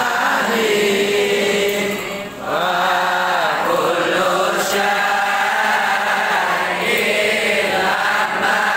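A group of men and boys chanting a sholawat pujian together, a slow Islamic devotional praise song with long held notes and a short break for breath about two seconds in.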